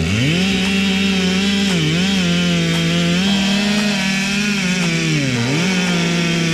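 Chainsaw running at high speed while cutting wood. Its pitch sags and recovers about three times as the chain bogs under load in the cut.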